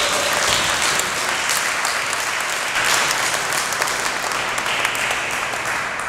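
Audience applauding: dense, steady clapping that fades near the end.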